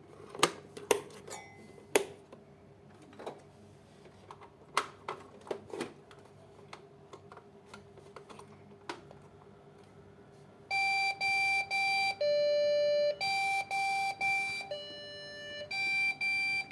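A few scattered clicks and knocks, then about ten seconds in a PC's motherboard beeper starts sounding a beep error code: three short high beeps followed by one longer, lower tone, the pattern repeating.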